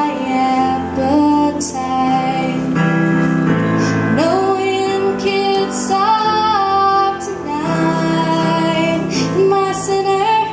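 A woman singing a pop ballad, accompanying herself on a Yamaha CP stage piano; sustained piano chords sit under the sung melody.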